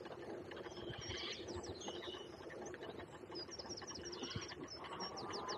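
A small songbird singing: a quick run of about ten short, high chirps from about three seconds in, with a few earlier notes. Under it is the faint, steady rolling noise of a bicycle moving along a gravel towpath.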